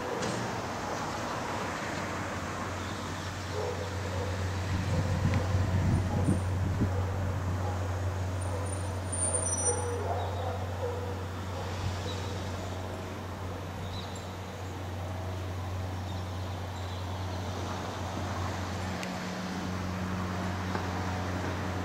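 Steady low engine rumble, like a motor vehicle running, which swells for a few seconds about a quarter of the way in.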